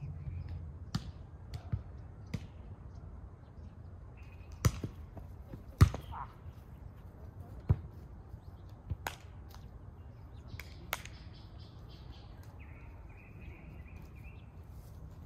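A volleyball being struck by players' hands and forearms during a rally: sharp slaps every second or two, the loudest about six seconds in.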